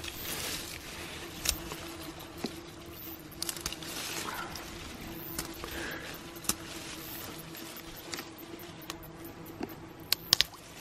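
Watercress being picked by hand: leaves rustling and crisp stems snapping off in the fingers, with scattered sharp snaps and a quick cluster of louder ones near the end.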